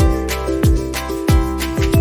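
Instrumental background music with a steady beat: a deep kick drum about every two-thirds of a second under held melodic notes.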